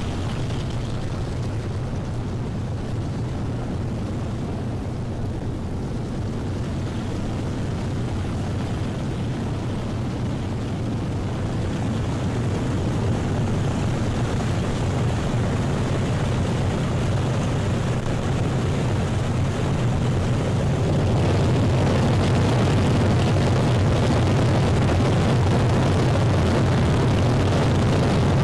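Boeing B-29 Superfortress's four Wright R-3350 radial piston engines running at taxi power, a steady deep drone. It grows louder about halfway through and again more sharply near the end as the bomber taxis closer.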